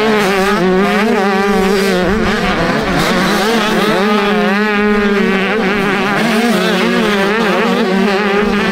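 Motocross bike engine running hard at high, fairly steady revs, its pitch wavering a little as the throttle changes.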